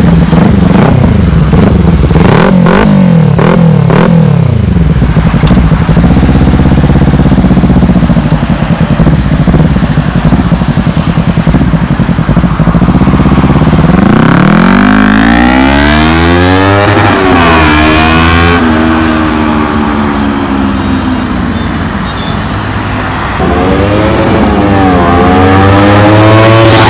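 Kawasaki Ninja 300 parallel-twin engine with a loud aftermarket exhaust, blipped with crackling pops in the first few seconds, then accelerating through the gears, its note climbing and dropping back at each upshift.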